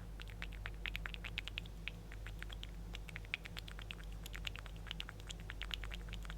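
Mechanical keyboard with Outemu Red linear switches, lubed with Vaseline, being typed on: a quick, irregular run of soft key strokes, the 'wet' sound of lubed switches. A faint steady low hum sits underneath.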